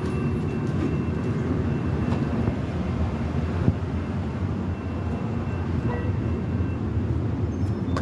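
Amtrak California bilevel passenger train at the platform: a steady low rumble with a faint high-pitched whine over it, and one sharp knock about three and a half seconds in.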